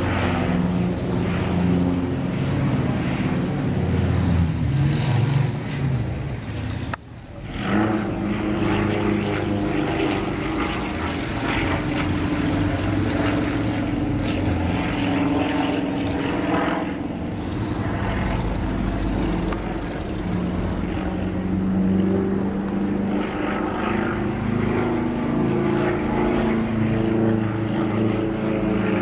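Propeller-driven airplane engine running continuously, its pitch shifting as the aircraft flies. The sound drops out abruptly for a moment about seven seconds in, then resumes.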